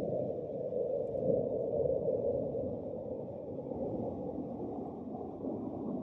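Low, steady outdoor rumble with no distinct events, its level wavering slightly.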